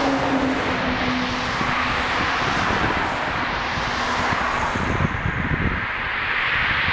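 Road traffic passing close by: a heavy lorry going past with a steady engine tone that fades out about two seconds in, then a car going by, with a constant rush of tyres on asphalt.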